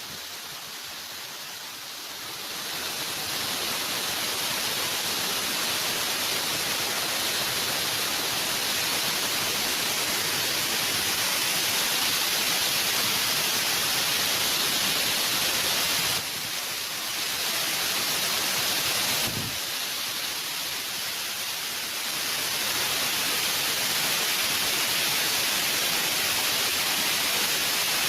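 Tirtosari waterfall, a steady rush of falling water, swelling about three seconds in and dipping briefly about two-thirds of the way through.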